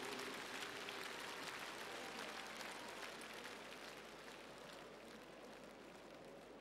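Audience applause dying away: many hands clapping in a dense patter that grows steadily quieter over a few seconds.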